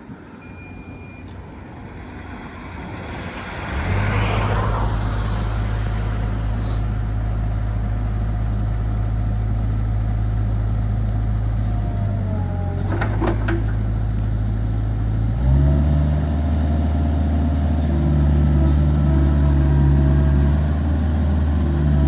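Kubota RX-505 mini excavator's diesel engine starting after a few seconds and settling to a steady idle, then raised to a higher speed about two-thirds of the way through, with a faint steady whine above the engine.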